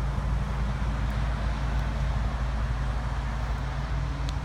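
Steady low drone of an idling vehicle engine, with a fixed low hum that neither rises nor falls.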